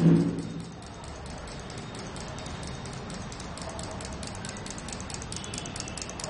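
Small motorised model trains running, giving a rapid, even ticking throughout. A short low hum comes right at the start, and it is the loudest sound.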